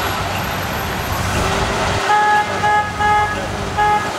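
A car engine runs with a low rumble. From about two seconds in, a car horn sounds a string of short toots in quick succession.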